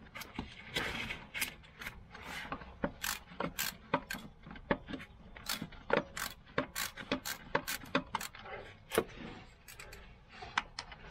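Hand socket ratchet clicking in repeated short strokes, a few clicks a second, as a nut or bolt is run onto the new engine mount.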